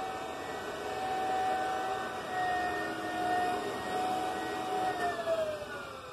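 Electric high-speed floor burnisher running with a steady high whine that swells and eases as the pad works the floor. About five seconds in, the motor winds down and its pitch falls steadily.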